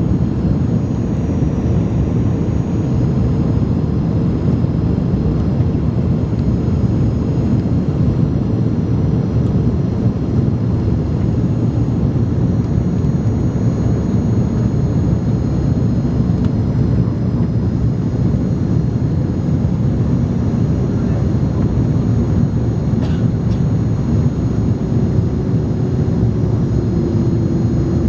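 Airbus A300 cabin noise in flight: a steady low rumble of engines and airflow with faint high whines. A humming tone fades away, and a slightly lower one comes in near the end.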